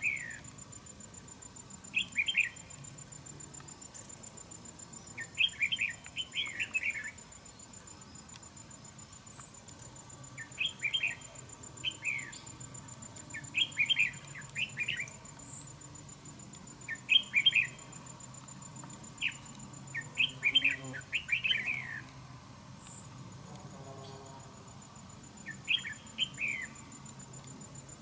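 Red-whiskered bulbuls singing: short, bright chirping phrases every couple of seconds, some run together in quick clusters.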